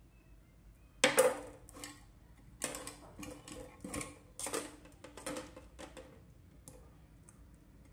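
Handling clatter: a string of sharp clicks and knocks as a plastic LED bulb is handled and set against a loudspeaker's magnet. The loudest knock comes about a second in, and the taps thin out towards the end.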